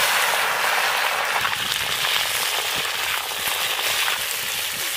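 Cauliflower florets frying in hot oil in a black wok, just dropped in: a loud, even sizzle that slowly eases off as the pieces settle in the oil.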